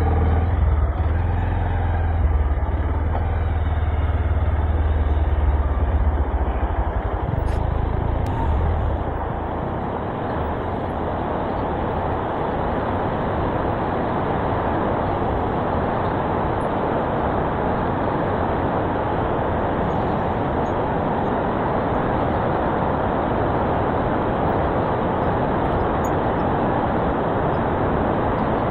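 Motorcycle riding a rough off-road mountain track: a strong low engine rumble for about the first nine seconds, then a steady rushing noise for the rest.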